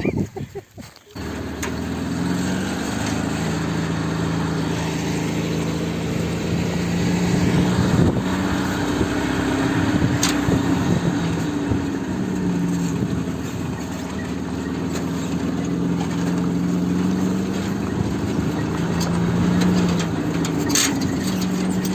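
Motor vehicle engine running as it drives off, coming on about a second in. Its pitch rises and falls several times as it speeds up and changes gear.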